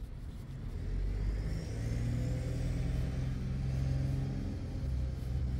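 A car engine running close by, its low hum growing louder about a second in and shifting slightly in pitch as it pulls along.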